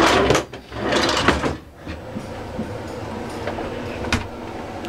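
A wooden vanity drawer sliding with a rattle, twice in quick succession. About two seconds in, a steady whirring noise sets in, with a single sharp click near the end.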